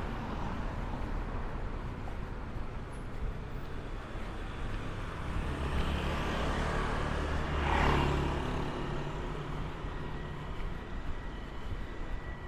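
City street traffic: engines running with steady road noise, and one vehicle passing close, loudest about eight seconds in.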